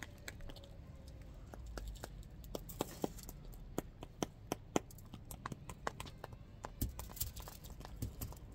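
Close-up eating sounds: irregular sharp clicks and crackles from food being chewed near the microphone, coming faster as it goes on.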